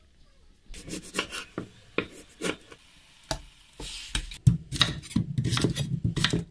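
Scattered knocks and scrapes of kitchen handling, then, from a little past halfway, a quick run of knife strokes cutting potatoes against a wooden chopping board, several knocks a second.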